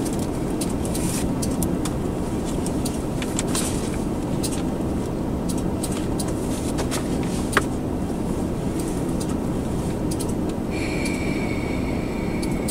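Diesel locomotive standing and idling, a steady low rumble with an even engine hum. A steady high-pitched tone starts about eleven seconds in.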